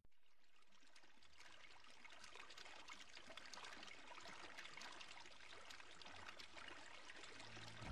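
Faint trickling of running water, a steady soft hiss crowded with tiny crackles.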